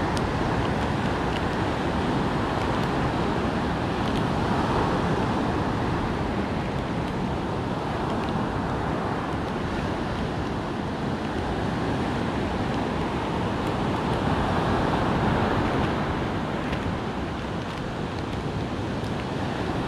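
Ocean surf breaking and washing up a sandy beach, a steady rushing wash that swells and eases slowly, with wind rumbling on the microphone.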